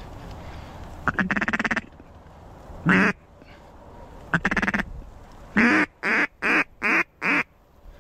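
Mallard duck call blown close by to work a drake: a fluttering chatter, a single quack, another chatter, then five short quacks in quick succession.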